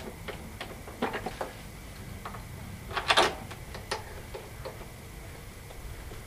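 Scattered light clicks and knocks from a walk-behind mower's handle being extended and worked into its mounting bracket. The loudest clatter comes about three seconds in.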